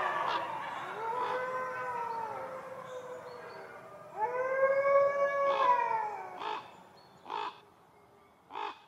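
Gray wolf howls: long, smooth, pitched howls that rise, hold and fall away, one about a second in and a louder one around four seconds in, then a few short, sharp calls near the end.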